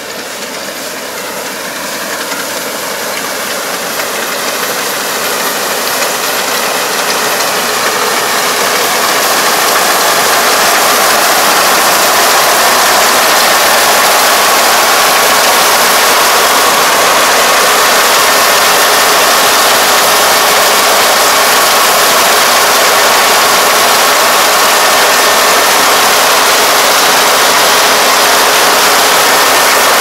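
Kubota ER470 combine harvester's diesel engine and threshing gear running under load as it cuts and takes in flattened rice. It grows steadily louder over the first ten seconds as it closes in, then runs loud and steady right alongside.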